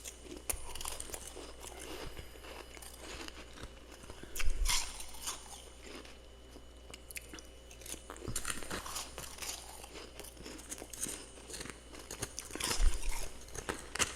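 Powdery freezer frost being bitten and chewed close to the microphone: a steady run of crisp crackling crunches, with two loud bites about four seconds in and again near the end.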